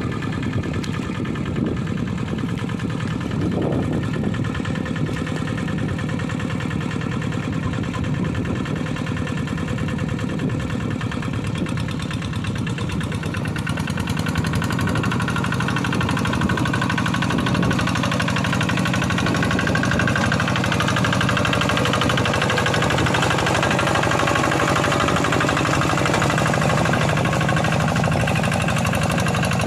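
Kubota single-cylinder diesel engine of a Quick G1000 hand tractor running steadily while ploughing a paddy field. It grows louder about halfway through.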